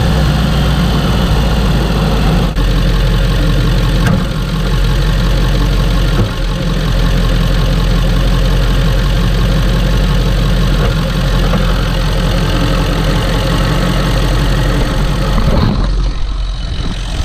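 1997 Ford F-250's 7.3 PowerStroke V8 turbo diesel running steadily at idle. Its higher part drops away briefly near the end.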